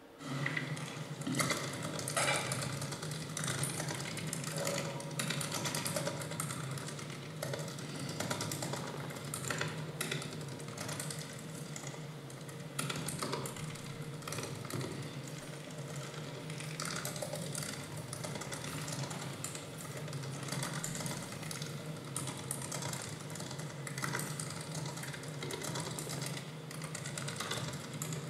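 Electronic stage sound design: a steady low drone under a dense, irregular stream of short clicks, starting abruptly.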